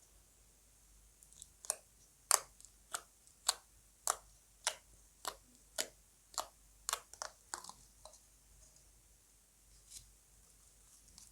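Slime being mixed by hand, giving a steady series of sharp pops and clicks, nearly two a second, that stops about eight seconds in, with one more pop near the end.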